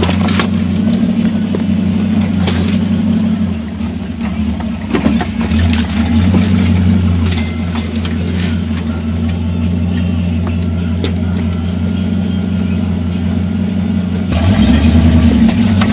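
Jeep CJ engine running at low speed while the vehicle crawls along a rough dirt trail, with scattered knocks and rattles as it jolts over the bumps. The engine grows louder near the end.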